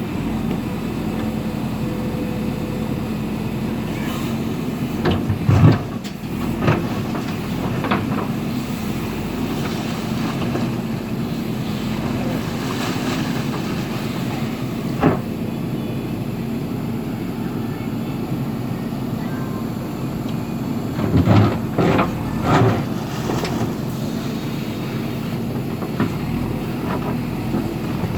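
JCB diesel engine running steadily, with sharp knocks now and then, the loudest about five and a half seconds in and a cluster of them around twenty-one to twenty-three seconds in.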